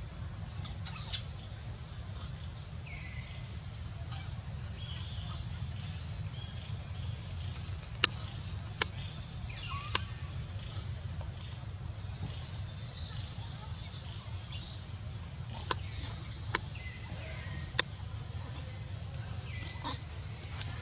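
Scattered short, high-pitched chirps and squeaks, about a dozen, mostly in the second half, with a few sharp clicks, over a steady low hum.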